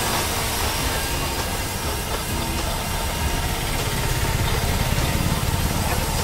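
Electric blender running steadily at full speed, blending a banana shake.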